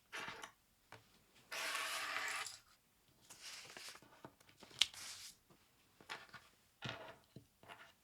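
Keyboard packaging being handled during unboxing: rustling and rubbing of box and wrapping, with one longer sliding scrape of about a second near two seconds in and a sharp click a little before five seconds in.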